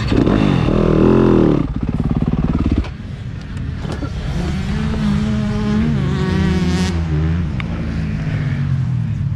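Motocross bike engine close to the camera: a quick rev up and back down in the first second and a half, then chugging at low revs, with the revs slowly rising and falling again around five to seven seconds in.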